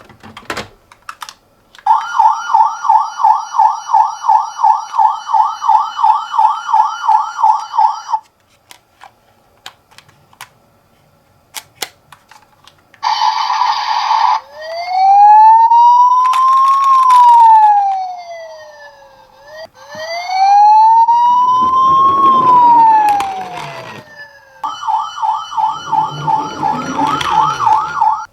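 Toy ambulance's electronic siren: a fast warbling yelp for several seconds, then two slow rising-and-falling wails, then the fast warble again, with a few sharp clicks in the gaps. A rough rattling noise, the toy's wheels rolling down the slope, runs under the wails.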